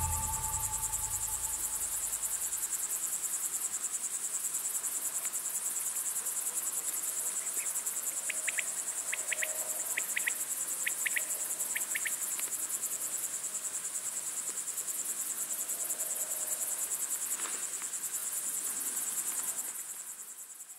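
A steady, high-pitched chorus of chirping insects with a fast, even pulse, as the last of the music dies away in the first few seconds. A few short chirps come a little past the middle, and the chorus fades out at the end.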